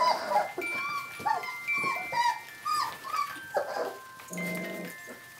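Smooth collie puppies whining and yelping in short rising-and-falling squeals, one after another. A music box plays a few clear, ringing notes behind them.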